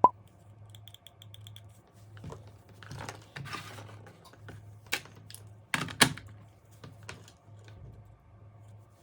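Packaging handled during an unboxing: sharp plastic clicks and knocks and a stretch of rustling, with the loudest clicks at the very start and about six seconds in. A quick run of about six short high pips comes about a second in, over a low steady hum.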